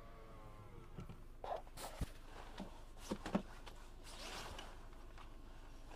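Handling noises: a few sharp clicks and knocks and a rustling swish, over the faint low hum of the Subaru engine idling.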